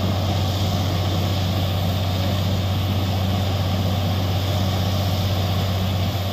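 Truck-mounted borewell drilling rig running steadily: a deep engine drone with a constant hiss of compressed air flushing water and rock cuttings out of the bore.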